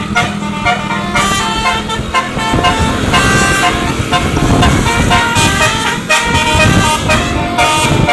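Basuri telolet musical horn on a tour bus playing a quick tune of changing notes, over the noise of the bus.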